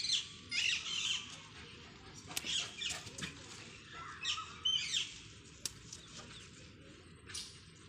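Birds chirping in short, high calls on and off, with a few sharp clicks.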